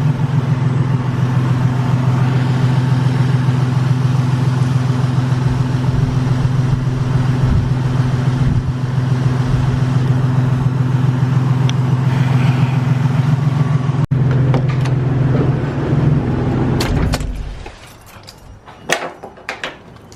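Toyota Tacoma's 3.4-litre V6 idling steadily, running quietly with its idler pulley newly replaced and the earlier ticking gone. About seventeen seconds in the engine is switched off, followed by a few sharp clicks and knocks.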